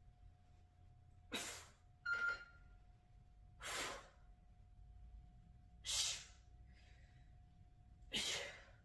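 A person breathing hard through a set of kettlebell chest presses: four sharp, forceful breaths about two seconds apart, one with each press. A short click with a brief ringing tone comes about two seconds in, under a faint steady hum.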